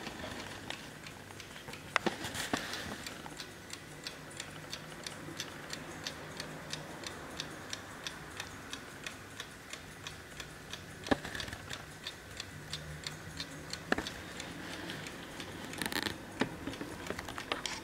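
Hermle mechanical mantel clock ticking with a quick, even beat. A few louder knocks stand out over the ticking, around two seconds in, twice in the last third, and near the end.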